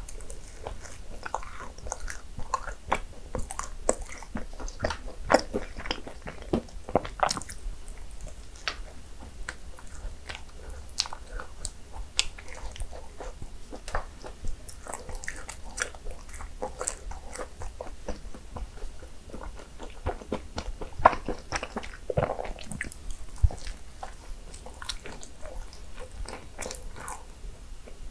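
A person biting into and chewing cinnamon rolls: wet mouth clicks and smacks coming irregularly throughout.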